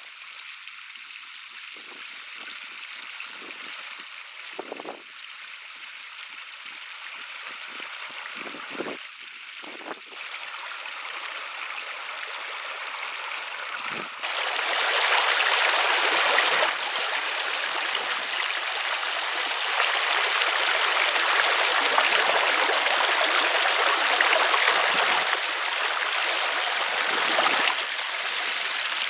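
Shallow, clear stream running over rocks: a steady rush of water that becomes clearly louder and fuller about halfway through.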